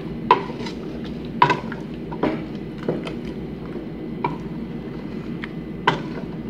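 Wooden spoon stirring a thick vegetable stew in a metal pot, with about six sharp knocks of the spoon against the pot spread through the stirring.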